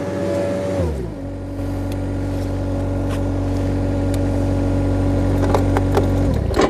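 Ransomes Parkway 3 triple-cylinder ride-on mower's engine drops from working revs to idle about a second in, idles steadily, then is switched off near the end and runs down to a stop.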